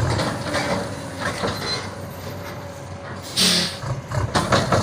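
Heavy truck engine running at a work site, fading down early on and coming back near the end, with one short loud hiss about three and a half seconds in.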